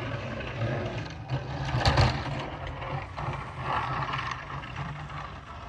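Pickup truck with a front snowplow blade driving past on a snowy street, its engine a steady low hum, with a loud burst of noise about two seconds in and the sound fading toward the end.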